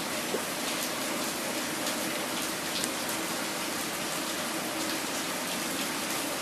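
Steady, even hiss with faint scattered ticks, and no speech.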